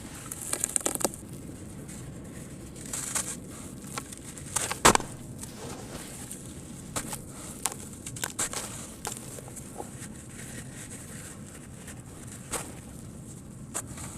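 Lumps of sand cement crumbling in water: irregular crunches and crackles, the loudest about five seconds in.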